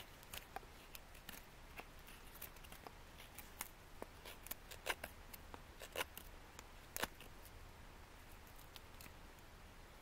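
Faint, irregular small clicks and snaps, a few a second, the sharpest about five, six and seven seconds in, thinning out after that.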